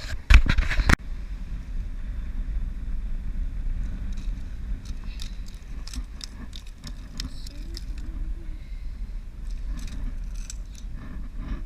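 Wind rumbling on the microphone, with a loud burst of handling or gust noise about half a second in, then scattered light clicks and rattles of fishing gear.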